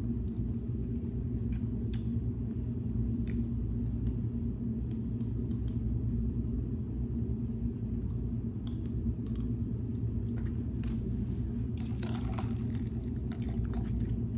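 A steady low rumble throughout, with scattered faint clicks and smacking mouth sounds of someone eating ribs and picking meat from their teeth.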